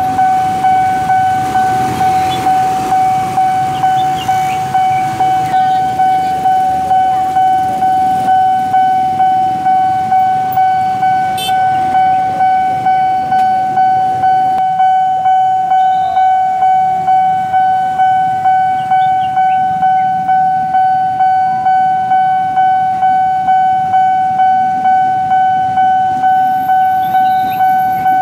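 Railway level-crossing warning bell ringing on and on in a steady single-tone beat of about one and a half strokes a second, over the low running of idling motorcycles and minibus engines. Near the end a KRL electric commuter train reaches the crossing.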